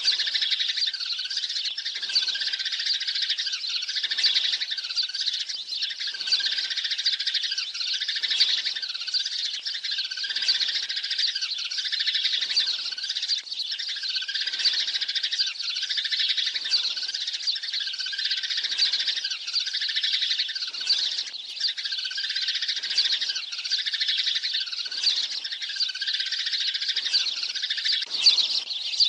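Sparrow flock calls: many sparrows chirping and chattering at once without a break, a lure call for drawing sparrows to a trap. The chorus repeats the same pattern about every two seconds.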